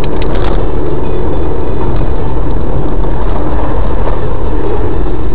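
Loud, steady road and engine noise inside a moving car, picked up by a dashcam's microphone, with a few short clicks near the start.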